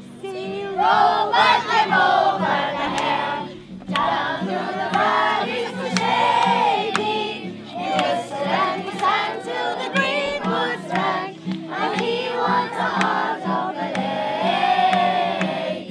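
A group of children singing a song together, with brief breaks between phrases.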